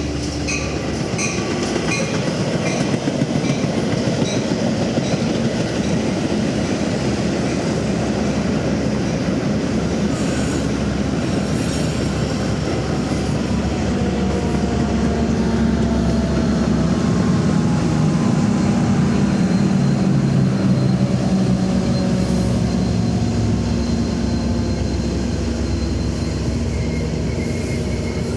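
Train passing close by on the track: a steady rumble and rattle of the wheels and cars, with faint squealing tones from the wheels now and then.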